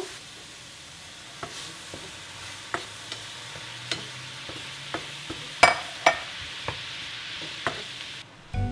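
Banana slices in coconut sugar and a little water sizzling in a non-stick frying pan, stirred with a wooden spatula that taps and scrapes the pan now and then, with two sharper knocks about two-thirds of the way through. The sizzle cuts off just before the end.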